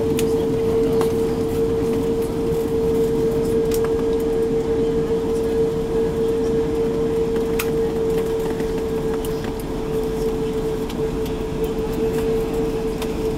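Cabin noise inside an Airbus A340-600 taxiing after landing: a steady hum at one pitch over a low rumble from the engines and the rolling airframe, with a few faint clicks and rattles.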